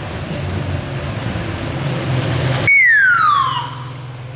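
Escort motorcycle engine growing louder as it approaches. About two-thirds of the way through, its siren gives a single falling whoop, dropping in pitch over about a second, while the engine hum carries on underneath.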